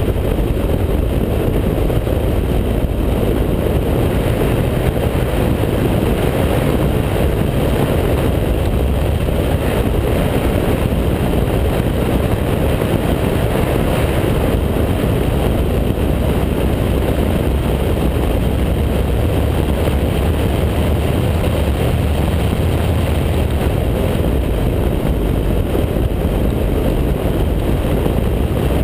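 Mazda MX-5 Cup race car's inline-four engine running hard at track speed, mixed with steady wind and road noise. The sound is a dense, unbroken low rush.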